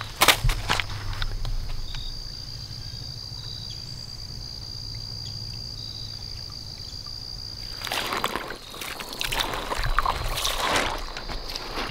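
Footsteps crunching through dry fallen leaves from about eight seconds in, with a few sharp leaf rustles right at the start. A steady high insect drone runs underneath.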